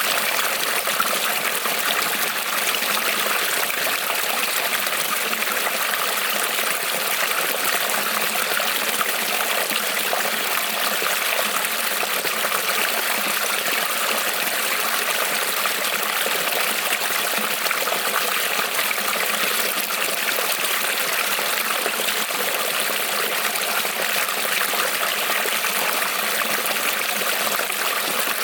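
A small creek rippling and trickling over stones, a steady even rush of water.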